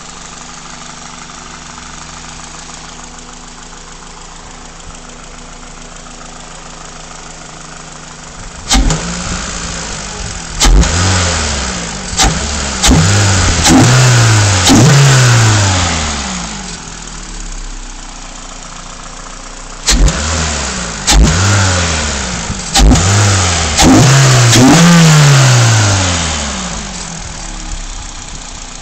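Stock Toyota Celica GTS four-cylinder engine idling steadily, then revved in two bursts of quick throttle blips, each rev rising and falling in pitch and the last of each burst held longer, dropping back to idle between and after.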